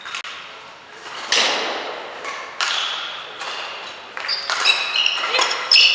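Badminton rally: rackets striking the shuttlecock, each hit sharp and echoing in the hall, the first two about a second and a half apart. Near the end come quicker taps and high squeaks of players' shoes on the court floor.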